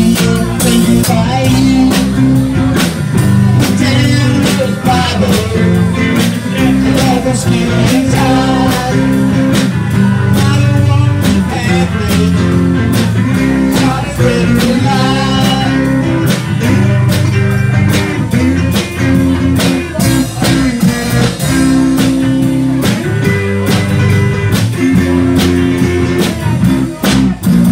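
A live band playing amplified music: electric guitars, an electric bass and a drum kit keeping a steady beat.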